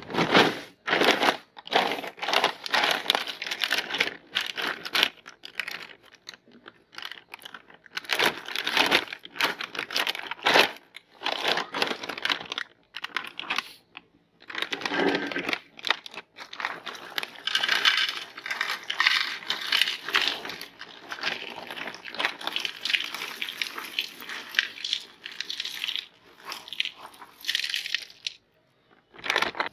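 Chocos chocolate cereal being crushed in a meat grinder: a dense crunching and crackling that comes in bursts of a few seconds, with short pauses between them.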